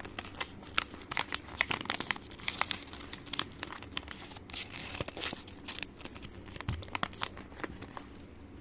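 Sheet of origami paper being folded and creased by hand: irregular crisp rustling and crinkling with many short clicks as the paper is bent and pressed flat.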